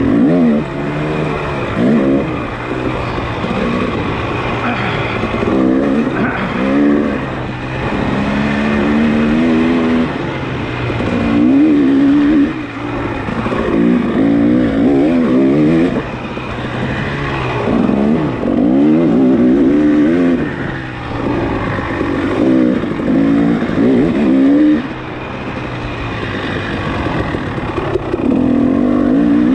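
Off-road motorcycle engine racing hard, its revs climbing and dropping again and again as the throttle is opened and shut.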